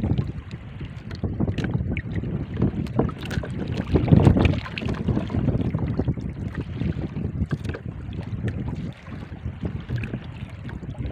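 Gusty wind buffeting the microphone on a small open boat at sea, with water sounds around the hull. A stronger gust comes about four seconds in.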